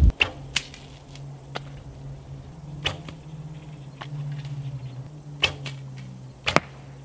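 An arrow shot from a bow near the end, a single sharp snap of the string, after a few scattered clicks, with a faint steady low hum underneath.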